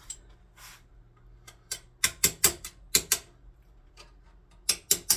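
Quick, short strokes of a hand tool fitting a barrel band, in runs of about four or five a second with a pause between runs.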